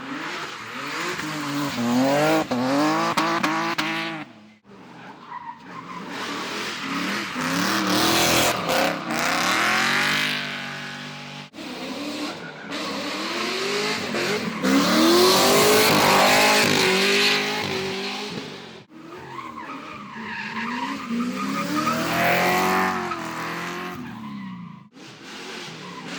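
Drift cars' engines revving up and down hard while their tyres squeal and skid, over several passes. The sound breaks off abruptly a few times, about every six or seven seconds.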